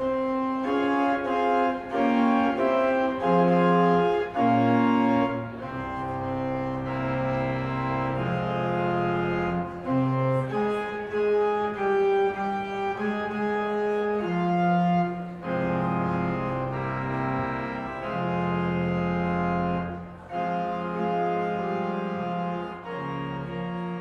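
Church pipe organ playing a slow piece of held chords, the notes changing every second or two.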